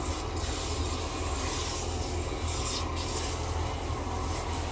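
Water from a handheld shower head spraying and running over a wet dog's coat as it is rinsed in a bathtub: a steady hiss that dips briefly twice, over a low steady hum.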